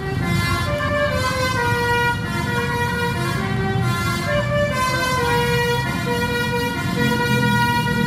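Coach bus's basuri telolet horn playing a tune: a run of horn notes stepping up and down in pitch, some held longer, over the low rumble of the bus's engine.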